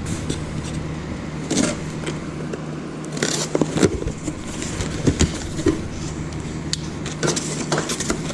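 Cardboard shipping box being opened and its contents handled: scattered scrapes, rustles and light clicks over a steady low hum.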